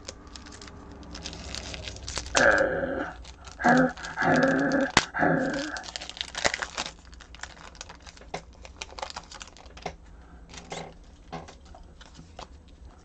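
A trading-card pack wrapper being torn open and crinkled by hand, with many small clicks and rustles. About two to six seconds in, a run of drawn-out pitched vocal sounds, louder than the handling, comes in three or four stretches.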